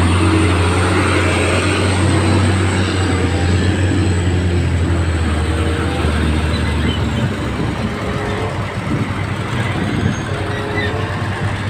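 Diesel engine of a loaded Hino Ranger dump truck running as the truck pulls away, a low steady hum with a rushing noise over it that weakens after about seven seconds.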